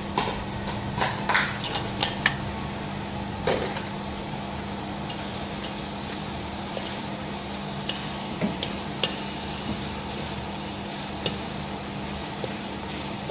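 Chicken feet tumbling from a bowl into an aluminium wok, with a cluster of clattering knocks in the first few seconds. Then a few scattered knocks of a wooden spatula against the wok as they are stirred, over the steady hum of a kitchen smoke-extractor blower.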